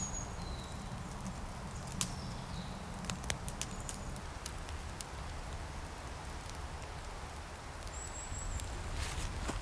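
Quiet outdoor camp ambience: a steady low rumble with a few sharp clicks scattered through it and a couple of brief, faint high chirps.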